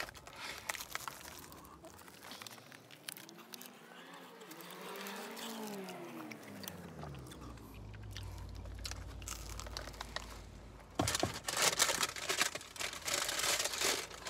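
Biting into and chewing a flaky pastry pie: crisp crunching and crackling of the pastry crust, densest and loudest in the last few seconds, with a quieter stretch in the middle holding a faint tone that glides up and down.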